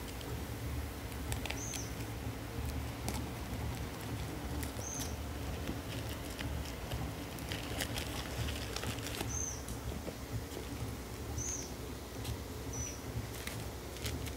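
Tape and plastic wrapping on a parcel being cut and torn open by hand: scattered crinkles and clicks, with six short high squeaks spread through it. A steady low hum runs underneath.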